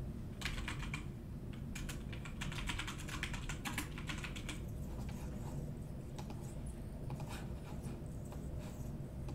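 Typing on a computer keyboard: quick runs of key clicks for the first few seconds, then scattered single keystrokes, over a low steady hum.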